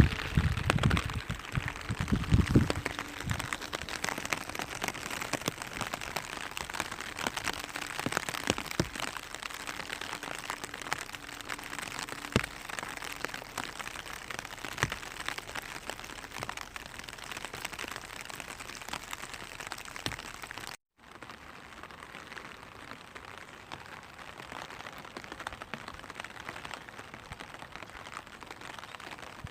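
Rain falling on a clear vinyl umbrella: a dense patter of small drops ticking on the plastic, with some heavier, deeper drop impacts in the first few seconds. About two-thirds of the way through the sound cuts out for a moment and resumes slightly softer.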